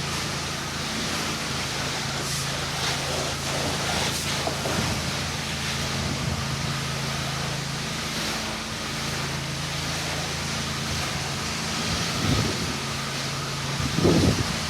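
Pressure washer engine running steadily under load, with the even hiss of the water spray over it; the engine's hum shifts slightly a few times.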